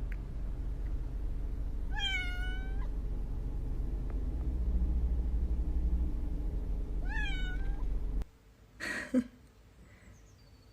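A cat meowing twice, two drawn-out calls about five seconds apart, over a steady low rumble that cuts off about eight seconds in. A brief noise follows about a second later.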